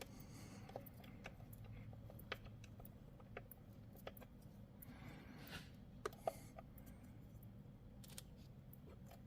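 Faint, scattered clicks and light taps of small metal parts and tools being handled while fitting felling dogs to a chainsaw, with a soft rustle about halfway through, over a low steady hum.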